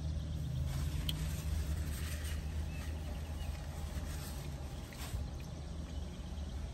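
A steady low rumble, with a few faint clicks and small eating sounds from a plastic spoon in a foam cup of chili.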